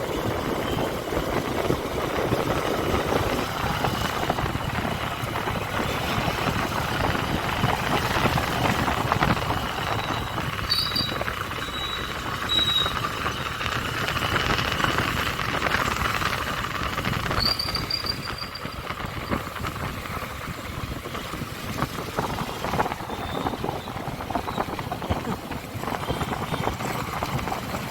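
Honda SP125 motorcycle riding on the road: a steady rush of wind and road noise with the engine running under it. A few short high-pitched squeals come through around the middle.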